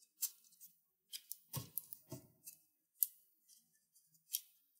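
Light scattered clicks and snaps of fingers unclipping the tiny Wi-Fi antenna connectors from a laptop's Wi-Fi card and handling the thin antenna wires. There are about a dozen irregular clicks, the sharpest about three seconds in and again near the end.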